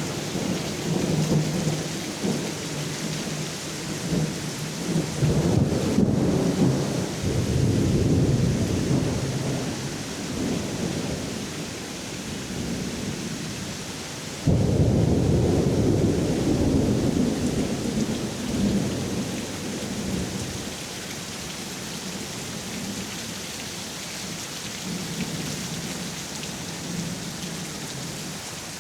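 Steady rain falling, with thunder rumbling. About halfway through, a sudden loud thunderclap rolls off into a long fading rumble.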